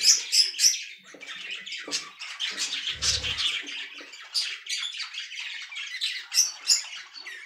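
Budgerigars chirping and squawking in many short, high calls, loudest near the start, with a brief low bump about three seconds in.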